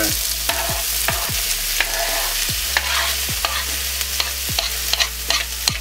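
Diced vegetables and ham sizzling in butter in a frying pan, with irregular knocks and scrapes, several a second, from a knife pushing diced tomato off a wooden chopping board into the pan.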